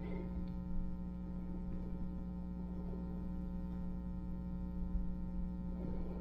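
Steady electrical mains hum, a low buzz with a ladder of evenly spaced higher tones, unchanging throughout; no other clear sound over it.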